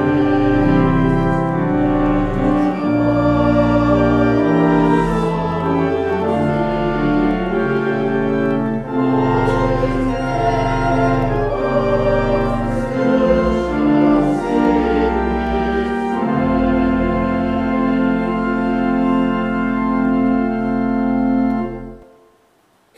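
Organ playing the last lines of a hymn in slow held chords, with voices singing along, ending on a long sustained final chord that stops abruptly near the end.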